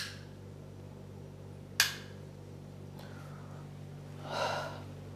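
A room light switch clicks on, followed by a second sharp click about two seconds later and a soft rustle near the end, over a steady low hum.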